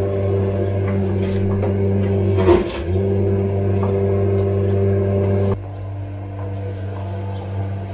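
A steady low mechanical hum of several fixed pitches, with a single knock about two and a half seconds in. Just over halfway through, the hum drops in level and loses its higher tones.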